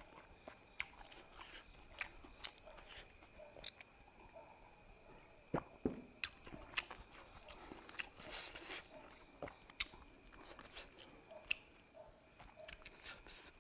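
A person eating: chewing and biting with scattered small clicks and crunches, and a brief noisier patch about eight seconds in.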